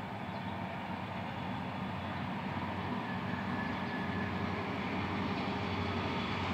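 Diesel locomotives of an approaching loaded freight train, led by an AC44C6M and an SD70ACC, heard from a distance as a steady low engine drone that slowly grows louder.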